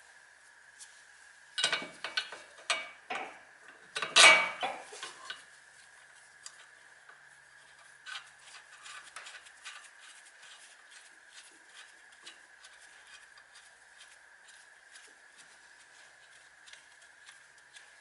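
Metal hand tools and parts clinking and clanking, with a cluster of loud clanks in the first few seconds, then a long run of faint light ticks.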